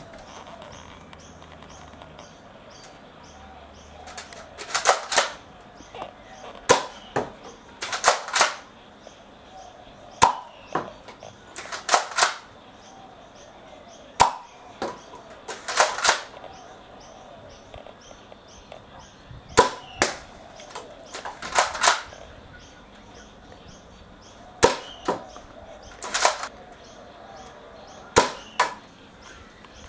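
Nerf Mega Cyclone Shock blaster primed and fired at a target, shot after shot: sharp plastic clacks and springy pops, often in quick pairs, with a pause of a second or more between them.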